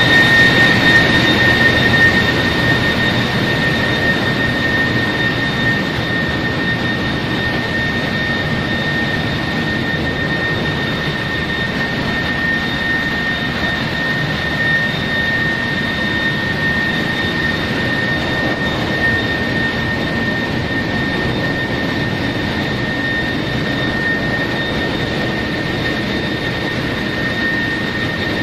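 Ship's engine-room machinery running: a loud, steady mechanical din with a constant high whine over it. It is a little louder for the first couple of seconds, then holds steady.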